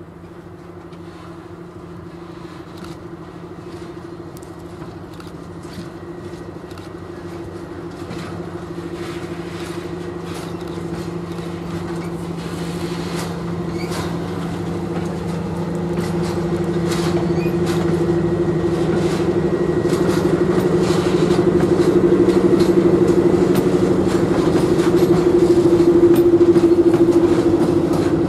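SM42 diesel-electric shunting locomotive's engine running with a steady drone, growing louder as it approaches and passes hauling tank wagons. Sharp clicks and rattles from the wheels on the rails come in more and more from about a third of the way in.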